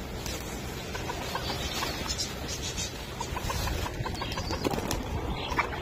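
A mixed flock of pigeons and chickens crowding in to feed, with pigeons' wings flapping as they fly in and short, scattered bird calls.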